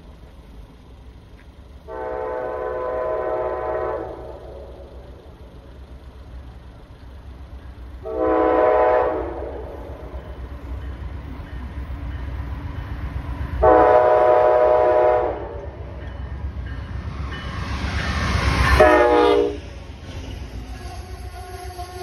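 Amtrak Vermonter locomotive sounding its multi-chime air horn four times as it approaches, over a rising low rumble of the train. The last blast falls in pitch as the locomotive passes at speed, and the coaches rumble past after it.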